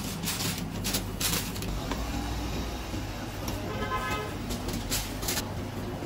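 Busy food-stall ambience: a steady low hum under several sharp knocks and clatters, with a brief pitched tone about four seconds in.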